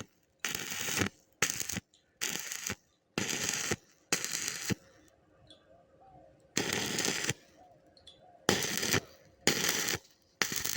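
Electric arc welding crackling in short bursts, about eight strikes of roughly half a second each with gaps between: small tack welds being laid one at a time.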